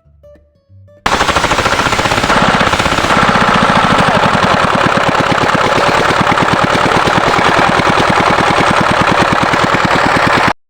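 Single-cylinder CH 170 diesel engine running after a full repair, a loud, rapid, even exhaust beat that comes in abruptly about a second in and picks up speed over the first couple of seconds. It cuts off suddenly near the end.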